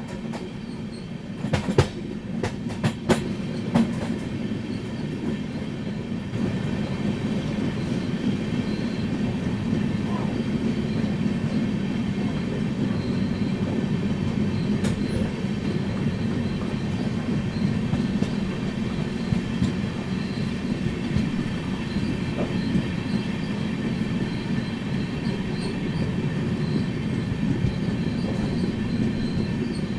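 Indian Railways train running with a steady rumble from the wheels and coach, and a faint steady whine above it. A cluster of sharp clacks comes about two to four seconds in, as the wheels pass over rail joints.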